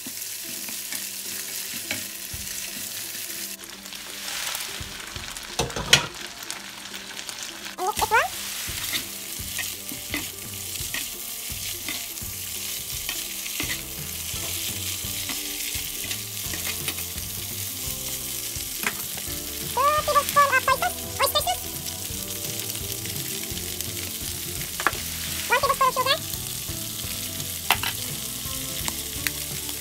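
Shrimp and string beans sizzling in hot oil in a nonstick frying pan, with a steady hiss. They are stirred and tossed with a plastic spatula, which gives scattered clicks and scrapes against the pan.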